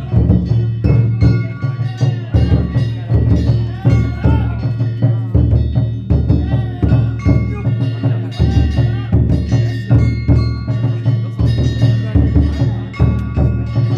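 Danjiri festival music: a large drum struck with a steady, driving rhythm while small hand gongs ring out over it in quick repeated strokes.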